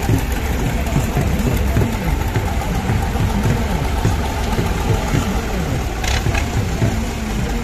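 Diesel tractor engines of Fiat 480 tractors running steadily close by, a loud, continuous low engine sound that wavers as the throttle changes.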